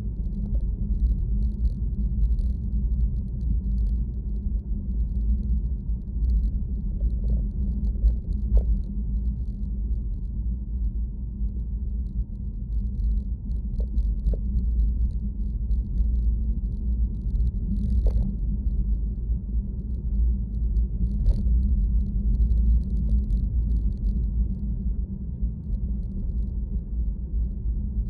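Steady low rumble of a vehicle in motion, with a few short clicks and rattles scattered through it.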